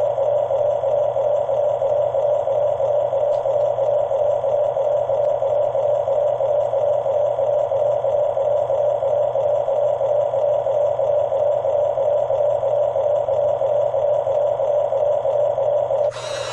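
Huina D9R radio-controlled model bulldozer running with a steady, unchanging hum. A harsher, hissier noise cuts in near the end.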